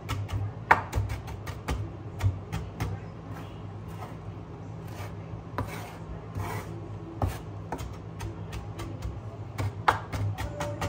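Knife chopping spring onions on a wooden cutting board: quick runs of sharp taps, densest in the first few seconds and again near the end, sparser in between.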